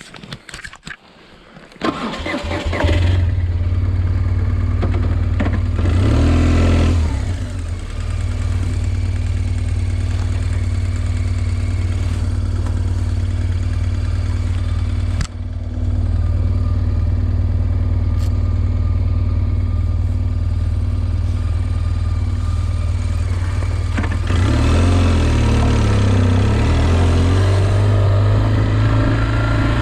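A vehicle engine starts about two seconds in, then runs steadily at low revs. It swells briefly around six to seven seconds in, with a sharp click in the middle.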